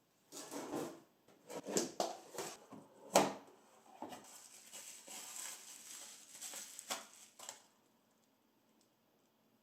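Small objects being handled: rustling with several clicks and knocks, the sharpest about three seconds in. It stops a little before the end.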